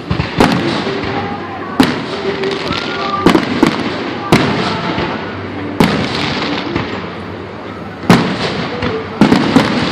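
Aerial fireworks bursting: sharp bangs every second or two over continuous crackling, with several bangs in quick succession near the end.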